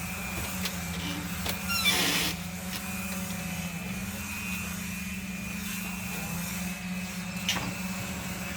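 A steady low hum of a running engine or motor, with a few light knocks and a brief louder rushing noise about two seconds in.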